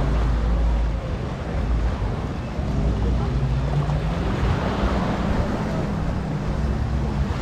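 Seaside ambience in the shallows: wind buffeting the microphone and small waves washing in, under the drone of a boat or jet-ski engine offshore, with voices of people on the beach.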